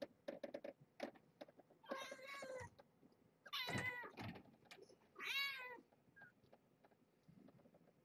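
Very young kitten, its eyes just opening, mewing three times in short high-pitched cries about a second and a half apart while it is handled. Soft clicks and rustles of handling come in the first second or so.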